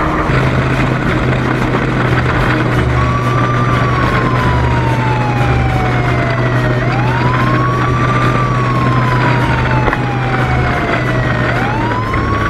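Police car siren wailing, starting about three seconds in: a slow falling tone that swoops quickly back up about every four and a half seconds. Under it runs a steady rushing noise with a low hum.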